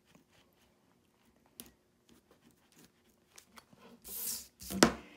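Faint clicks of small snips and hands handling a hooped embroidery project, then about four seconds in a short rustle of the stabilizer, and a sharp knock just before the end.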